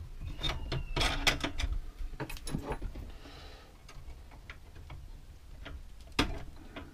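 Clicks and knocks from hands working the tension release and upper blade clamp of a Record Power SS16V scroll saw to loosen the blade. They come in a cluster during the first three seconds, then sparser, with one sharper knock near the end.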